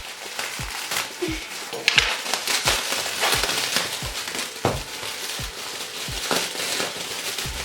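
Packaging crinkling and crackling as it is handled and unwrapped, over background music with a steady low beat.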